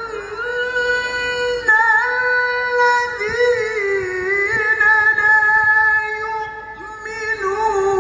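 Qur'an recitation in the melodic competition (mujawwad) style: a male qari draws out one long high note with small wavering turns. Near the end it dips briefly before the next phrase begins.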